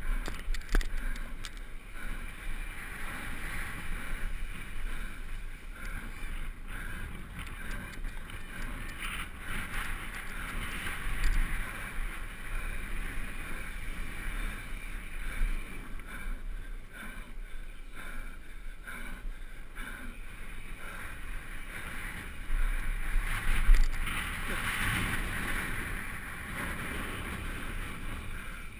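Downhill mountain bike rolling fast over hexagonal concrete pavers: tyres rumbling over the joints and the bike rattling, with wind buffeting the helmet camera's microphone. A louder jolt comes about two-thirds of the way through.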